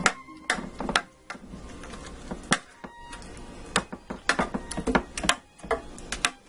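Metal spoon clicking and scraping against a baking dish as thick sauce is spread across its bottom: a string of irregular sharp clicks.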